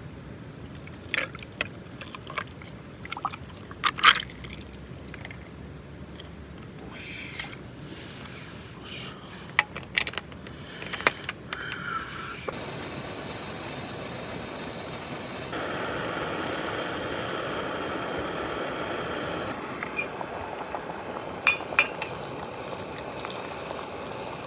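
A handful of sharp clinks and knocks, then a steady liquid hiss lasting about ten seconds, louder for a few seconds partway through, with a few more clinks near the end.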